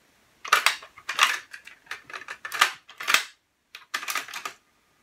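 Short plastic clicks and clatter from a cassette being handled in the tape well of a Pioneer CT-W205R cassette deck: the test tape is taken out, turned over and put back in. The clatter comes in a series of quick bursts with a short pause a little after the middle.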